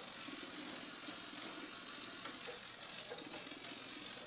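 Small RC servos whining quietly in short bursts as the KK2.0 flight controller in auto-level mode moves the ailerons to counter the plane being rolled by hand.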